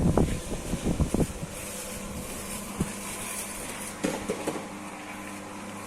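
Abon cooking machine running: a steady motor hum, with a quick run of clattering knocks in the first second or so and a few more about four seconds in.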